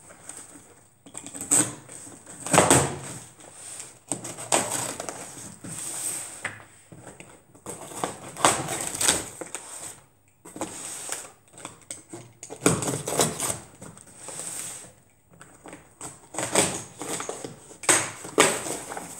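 Cardboard box of books being opened and unpacked by hand: irregular rustling and scraping of cardboard and paper, with occasional knocks as things are moved.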